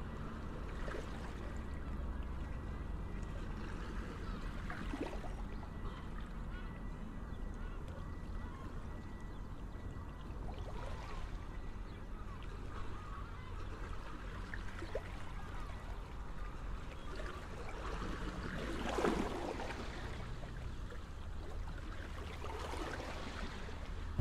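Quiet outdoor background noise with a few faint, brief passing sounds, the loudest about three-quarters of the way through.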